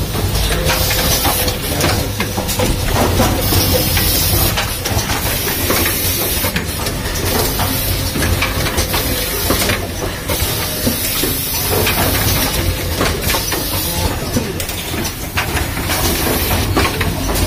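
Automatic rapid test kit assembly machine running, a dense continuous clatter of mechanical clicks over a low rumble, with repeated bursts of hiss.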